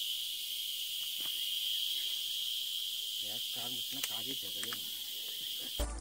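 Insects buzzing in one steady high-pitched drone, with faint distant voices about halfway through.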